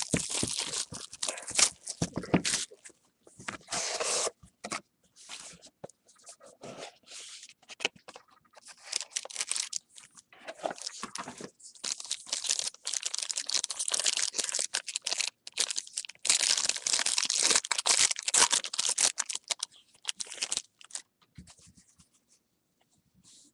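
A sealed trading-card box and its foil pack wrapper being torn open and crinkled by hand, in irregular rustling bursts that fall quiet near the end.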